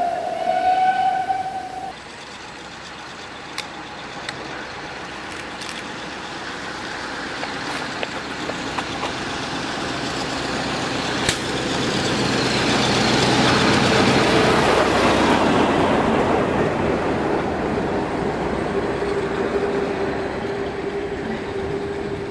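A locomotive horn sounds for the first two seconds. Then a narrow-gauge diesel train approaches and runs past close by, loudest about two-thirds of the way through, and its engine leaves a steady hum as it draws away.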